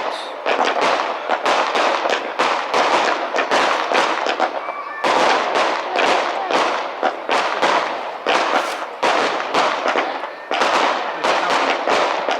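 Fireworks going off in a rapid barrage of sharp bangs and crackles, several a second, with short lulls about five and ten seconds in.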